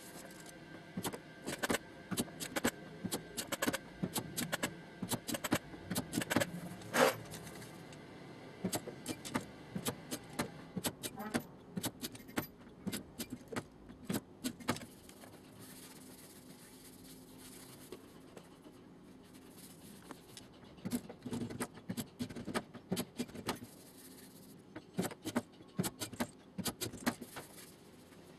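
Irregular metallic taps and clinks on a steel car door panel during body straightening, some strikes ringing briefly, with a quieter lull midway.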